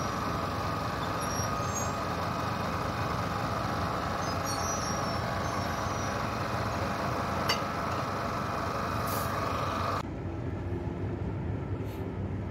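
Diesel engine of a stationary locomotive idling steadily, with a faint high whine over the running. About ten seconds in the sound drops suddenly to a quieter, more distant engine noise.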